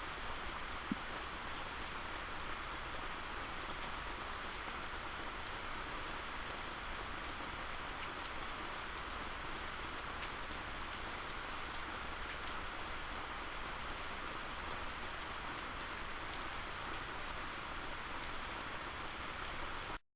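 Steady rain falling, an even hiss of drops with one sharper tap about a second in; it cuts off abruptly at the very end.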